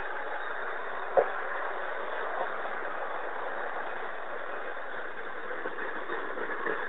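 Grain hopper wagons of a freight train rolling past over the rails, a steady rolling noise heard thin through a basic phone camera's microphone, with one sharp click about a second in.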